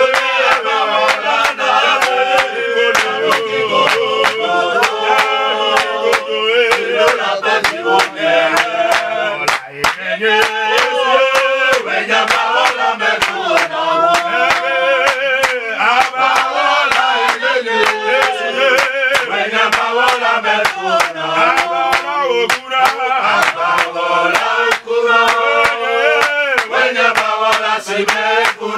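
A group of voices singing a worship chorus together, with sharp beats keeping a quick, steady time under the singing.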